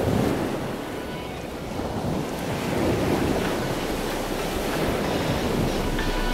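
Wind and surf: a steady rushing noise that swells and eases, with wind buffeting the microphone.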